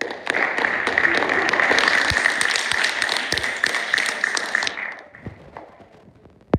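A group of people applauding, a dense patter of hand claps that dies away about five seconds in.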